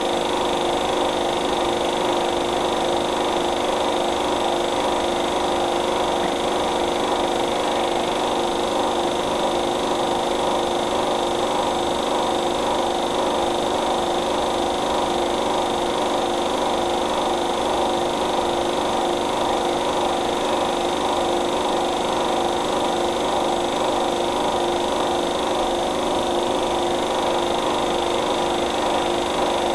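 Steady mechanical hum with hiss, several fixed tones held without change, with no beat or melody.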